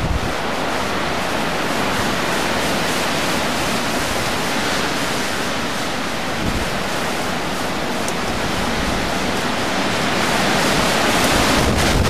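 Storm wind rushing steadily through trees, an even hiss with irregular low buffeting on the microphone, growing a little louder near the end.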